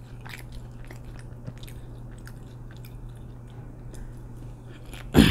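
Close-miked chewing and biting: small wet mouth clicks and smacks from eating sauce-dipped waffle fries, with one short loud mouth sound about five seconds in.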